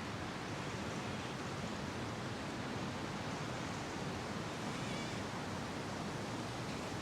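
Steady wind blowing through bare, leafless winter trees: a continuous, even rushing noise with no clear gusts.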